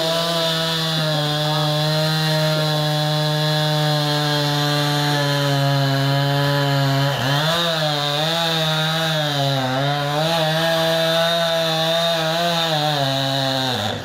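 Gas chainsaw held at full throttle cutting into a pine trunk. From about halfway its pitch wavers up and down as the saw labours in the cut, and it drops off just at the end as the throttle is released.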